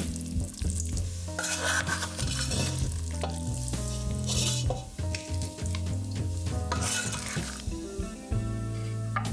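Creamy fusilli pasta with broccoli being stirred and scooped in a stainless-steel pot, wet scraping and squishing in a few bursts.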